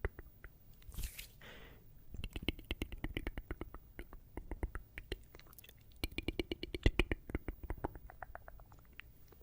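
ASMR tongue clicking close to the microphone: quick runs of wet clicks, several a second, in bursts with pauses between, and a short airy hiss about a second in.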